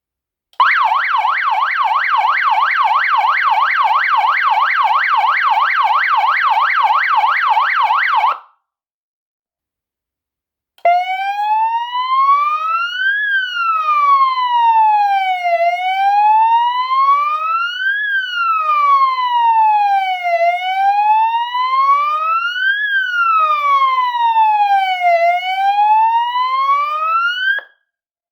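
A 12 V DC electronic car siren sounding a fast yelp tone for about eight seconds. After a two-second pause it switches to a slow wail that rises and falls about every five seconds, and it cuts off sharply near the end.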